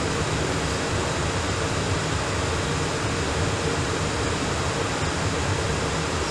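Steady, even rushing noise with a faint low hum underneath, unchanging throughout, the background hiss of the dubbed-in air-traffic-control radio audio between transmissions.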